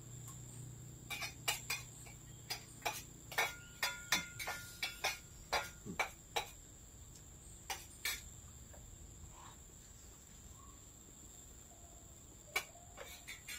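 Spoons clicking and scraping against plates while eating: a quick irregular run of clinks for several seconds, then a few more near the end. A steady high insect drone sounds underneath.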